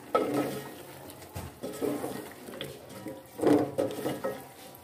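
Wooden spoon stirring sliced potatoes through a thick tomato and yogurt masala in an aluminium pot, in uneven strokes that scrape and knock against the pot. The loudest stroke comes about three and a half seconds in.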